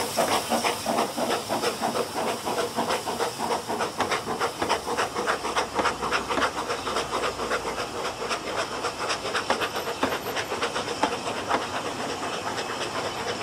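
Narrow-gauge steam locomotive pulling a train away, its exhaust beats coming fast and even over a steady steam hiss, and growing fainter toward the end as the train draws off, with the carriages rolling past.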